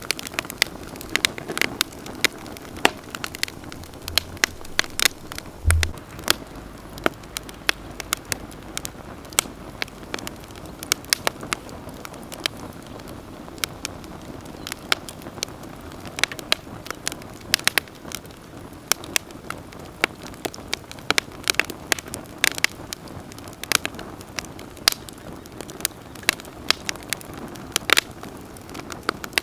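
Wood campfire burning, with a steady low rush of flames and frequent irregular sharp crackles and pops. A single low thump comes about six seconds in.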